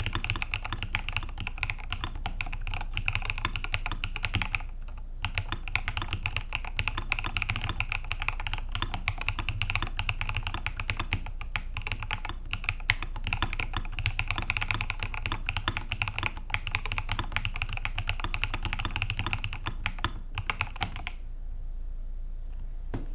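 Fast, continuous typing on a mechanical keyboard with lubed NK Cream linear switches on 62g Durock springs and MT3 keycaps: a dense run of keystroke clacks with a brief pause about five seconds in. The typing stops a couple of seconds before the end.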